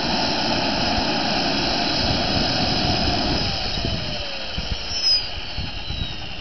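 Wren gas-turbine engine of a radio-controlled helicopter winding down, the main rotor coasting. A steady high whine over a rushing roar gives way about halfway in: the roar fades and the whine glides steadily lower in pitch.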